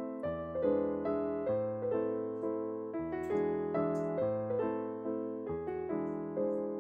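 Background piano music: a gentle melody of single struck notes, each fading away before the next.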